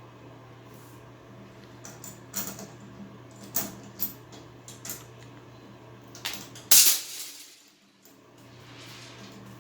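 Small hard plastic and metal shower-valve parts clicking and knocking as they are handled and fitted: about seven sharp clicks, the loudest nearly seven seconds in, over a steady low hum.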